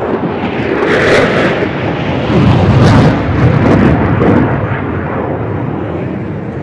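An aircraft flying past in the display: loud engine noise that swells about a second in, is loudest from about two and a half to four and a half seconds, then fades.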